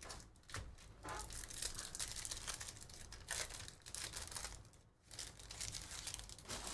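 Foil wrapper of a baseball card pack being torn open and crinkled by hand.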